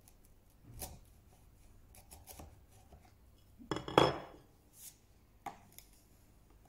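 A bench chisel pares thin shavings from a hinge recess in hardwood with a few soft scrapes. About four seconds in comes a loud metallic clatter as the chisel is put down and a smaller one picked up, followed by a couple of light taps.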